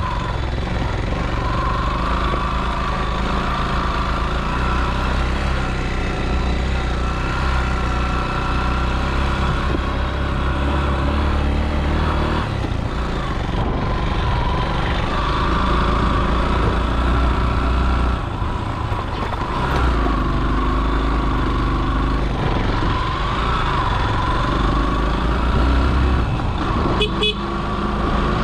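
Yamaha motorcycle engine running at riding speed, with wind noise on the handlebar-mounted microphone; the engine note dips briefly about two-thirds of the way through.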